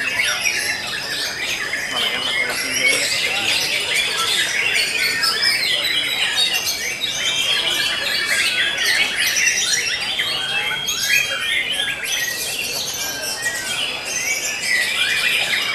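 Many caged songbirds singing at once, a dense chorus of overlapping whistles, chirps and trills, white-rumped shamas among them.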